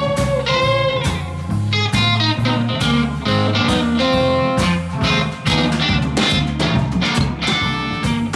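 Live blues band: a red semi-hollow electric guitar plays lead lines, with bent notes near the start, over a drum kit and a low bass line.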